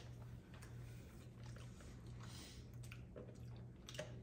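Faint mouth sounds of a person sipping and swallowing a drink, with a few small clicks over a low steady hum.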